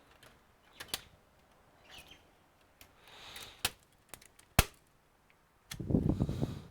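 Laptop's plastic casing clicking and tapping as its panels are handled and pried apart by hand, with a short rough scrape near the end.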